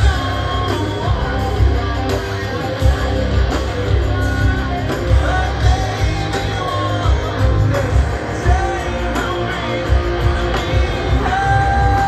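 Rock band playing live through a concert PA, heard from the crowd: electric guitars, bass and drums under a male lead vocal, which holds a long note near the end.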